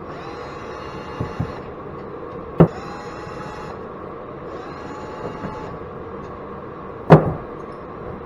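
Three short runs of a small electric motor whining, like a cordless drill driving screws, with two sharp metal clanks, the louder one near the end. A space heater runs steadily underneath.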